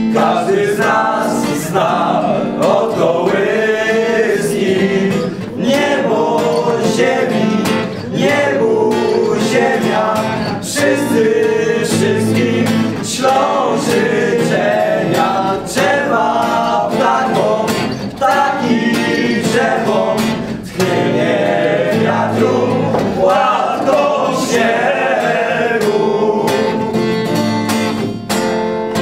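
Group of young men singing a Polish Christmas carol together, accompanied by an acoustic guitar.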